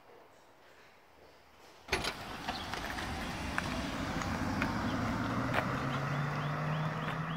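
A converted electric Toyota MR2 driving off along a road: tyre and road noise with a low hum that slowly rises in pitch. It comes in suddenly about two seconds in, after near quiet, and birds chirp near the end.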